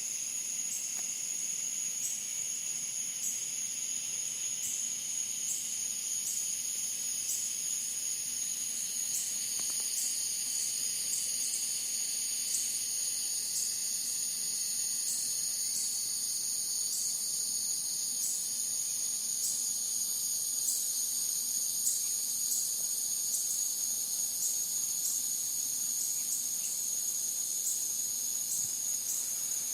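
Night insect chorus, sung as cicadas: a steady, high-pitched, shrill drone, with a faint regular pulse about twice a second running through it.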